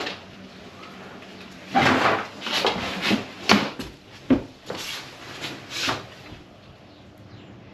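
Irregular knocks and scrapes, about a dozen in quick uneven succession between about two and six seconds in, then quieter.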